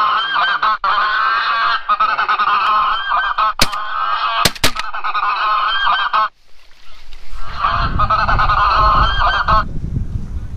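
A flock of geese honking, many calls overlapping without pause. The honking breaks off abruptly about six seconds in, returns a second later with wind rumbling on the microphone, and breaks off again near the end. Three sharp clicks about halfway through.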